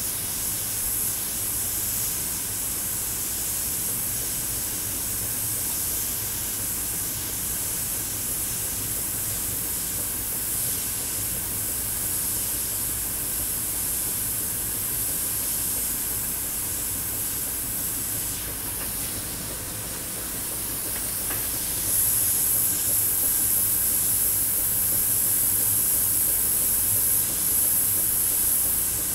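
Harbor Freight double-action, suction-feed airbrush spraying paint with a steady hiss of air, which gets louder about three-quarters of the way through.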